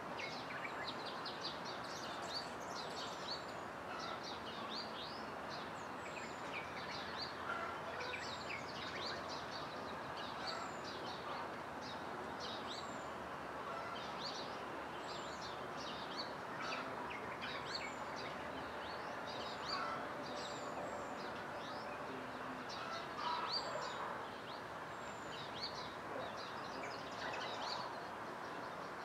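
Dawn chorus: many small birds chirping, with short, often downward-sweeping calls overlapping throughout, over a steady low hiss.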